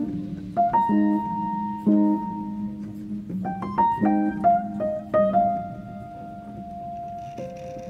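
Background piano music: single struck notes and chords ringing on, with a long held note in the second half.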